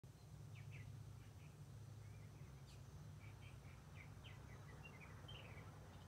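Faint, quick chirps and chatter from purple martins fussing, several short notes each second, some sliding downward, over a steady low hum.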